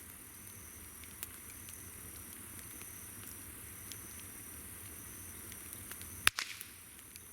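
Wood campfire crackling with scattered sharp pops, the loudest a single pop about six seconds in followed by a short run of crackling. Insects call steadily in the background in a high, even trill.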